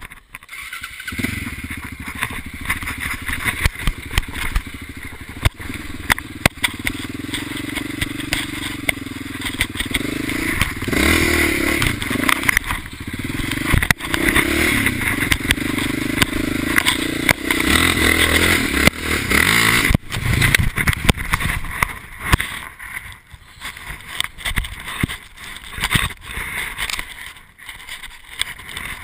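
Quad bike (ATV) engine running off-road, rising and falling in revs, with the machine rattling over rough ground. About twenty seconds in comes a sharp knock, after which the engine sound drops away and only scattered clattering knocks remain.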